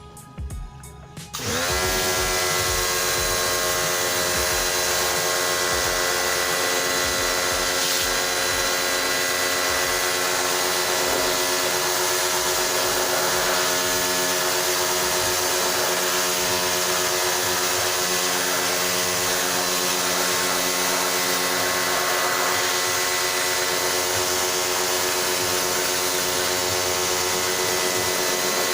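A small electric motor starts about a second and a half in with a short rising whine, then runs steadily with a constant hum and hiss.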